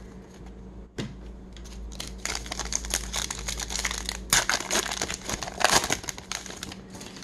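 A 2021 Topps Heritage baseball card pack being torn open by hand. The wrapper crinkles and rips in a dense run of crackles starting about two seconds in, loudest a little past the middle and again near the end.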